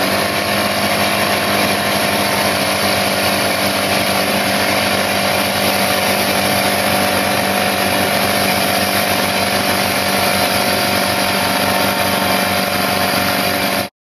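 Porter-Cable 135 psi pancake air compressor running steadily and loudly, a constant motor-and-pump drone with a steady hum underneath, about 100 dB close up. The sound cuts off suddenly near the end.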